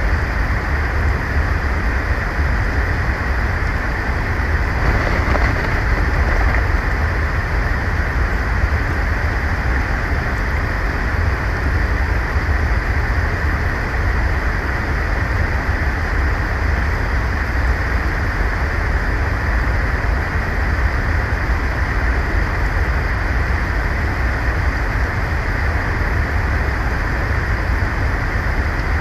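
Steady wind on the outdoor nest camera's microphone: a constant hiss with a heavy low rumble and no break.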